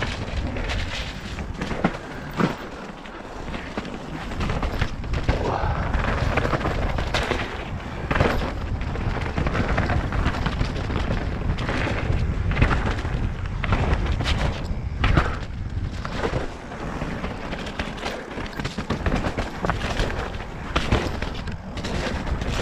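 Nukeproof Mega RS mountain bike descending a wet, muddy, rocky trail: a steady rush of wind and tyre noise broken by repeated sharp knocks and rattles as the bike hits rocks and roots.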